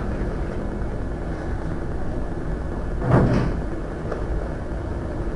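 Steady low rumble of room noise, with one dull thump about three seconds in.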